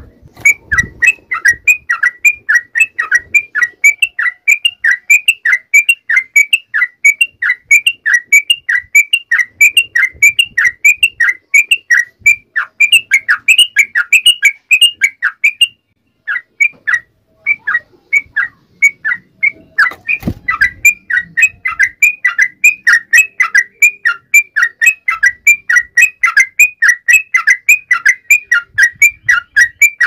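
Yellow-vented bulbul (trucukan) singing: a long run of short, loud chirps that fall in pitch, about three a second. The run thins out for a few seconds past the middle, then picks up again.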